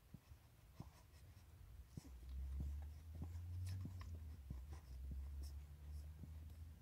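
Newborn puppies suckling at their mother's teats: faint, irregular wet smacks and clicks. A low rumble sets in about two seconds in.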